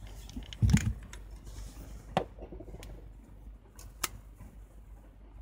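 A metal film SLR, a Canon F-1, being handled: a dull knock under a second in, then two sharp clicks about two and four seconds in.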